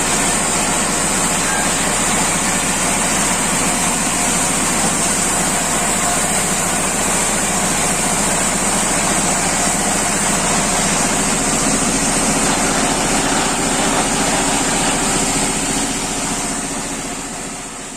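Engine-driven sawmill wood-slicing machine running steadily with a high whine, fading out near the end.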